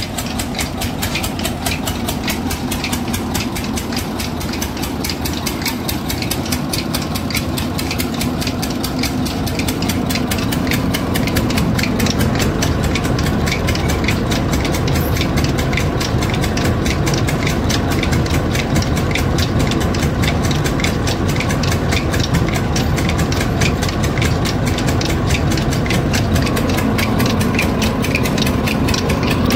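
Belt-driven farm huller (thresher) running, its engine and drive belts and pulleys turning with a steady, fast mechanical clatter.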